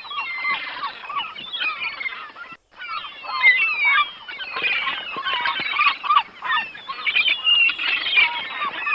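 A dense chorus of many birds chirping and calling over one another, with short, quick notes throughout; it breaks off for a moment about two and a half seconds in.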